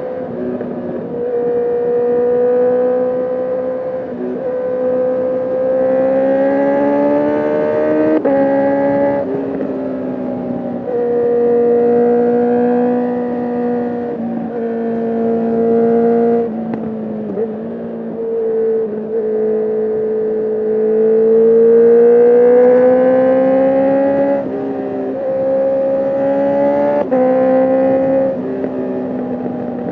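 Honda CB650R inline-four engine through an Akrapovic full titanium exhaust with the dB killer out, pulling under riding load. Its pitch climbs steadily and then drops in quick steps at each gear change, several times over, using the quickshifter.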